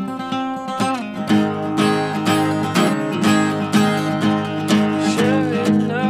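Acoustic guitar strummed in a steady rhythm of about two strums a second, with the chords ringing on between strokes. A singing voice comes in near the end.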